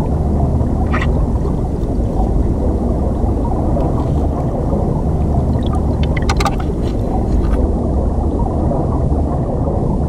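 River current heard underwater: a steady low rumble of flowing water, with a short click about a second in and a quick run of clicks around six seconds in.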